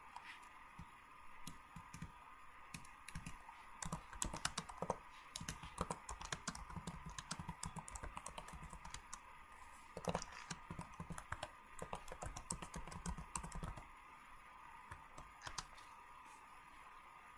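Faint, rapid, irregular light clicks and taps, thickest through the middle and thinning out near the end, over a steady faint hum.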